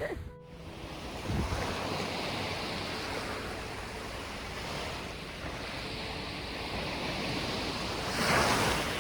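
Sea waves washing onto a beach, a steady wash of surf with a louder wave breaking about eight seconds in.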